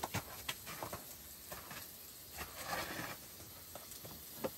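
Scattered light clicks and knocks of things being handled on a folding table, with a short rustle about two and a half seconds in.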